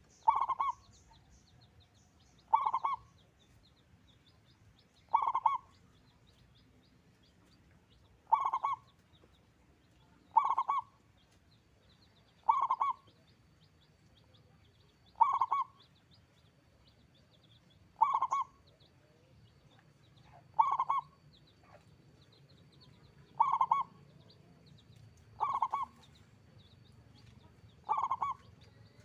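Zebra dove (perkutut) cooing: the same short, loud call repeated steadily about every two and a half seconds, twelve times. Faint high chirps sound between the calls.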